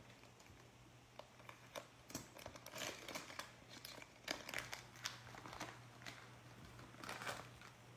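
Wrapper of a trading card pack crinkling and tearing as it is opened by hand, in irregular crackles that are loudest about three to five seconds in and again near the end. A low steady hum runs underneath.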